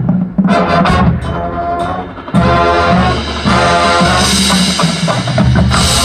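Marching band playing: brass and percussion in short accented hits, then about two seconds in a loud, sustained full-band chord with held low brass notes, swelling again near the end.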